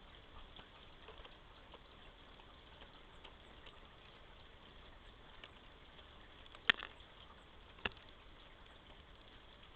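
Steady low hiss from a trail camera's microphone, with scattered faint taps and two sharp clicks a little over a second apart past the middle.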